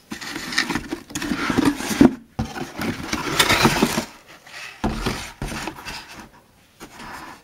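Packaging being handled: crinkling plastic wrap, paper and cardboard from an opened blender box, in several bursts with short pauses, loudest in the first four seconds.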